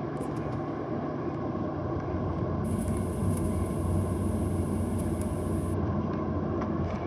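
Boeing 737 taxiing, heard from inside the cabin: the jet engines' steady low drone and cabin noise, with no distinct events.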